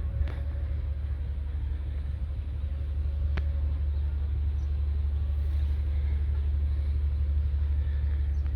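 Heavy road-construction machinery running steadily, a continuous low diesel rumble, with a single sharp click a little over three seconds in.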